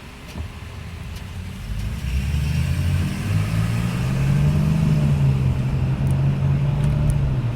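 Vehicle engine running through a test run after a vacuum leak or clog was dealt with. It grows louder about two seconds in, rises a little in pitch, then holds steady and eases off near the end.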